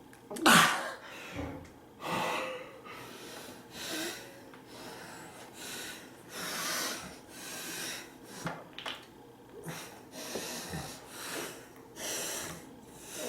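A person breathing heavily close to the microphone: a series of noisy breaths and snorts every second or two, the loudest about half a second in.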